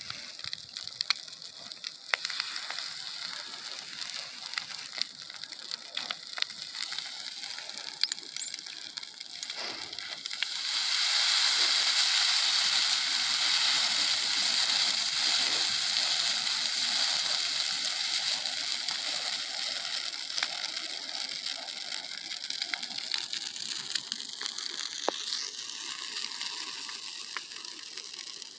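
A burning pile of cut brush crackles with scattered sharp pops. About ten seconds in, the fire flares up into a loud rushing hiss, which slowly dies back to crackling over the next dozen seconds.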